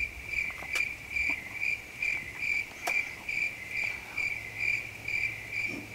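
Cricket chirping in an even rhythm, a little over two high chirps a second.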